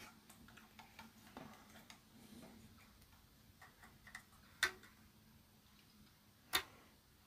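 Quiet room with scattered small ticks and two sharp clicks, one about four and a half seconds in and one about six and a half seconds in: small handling clicks during a close inspection of an amplifier's circuit board.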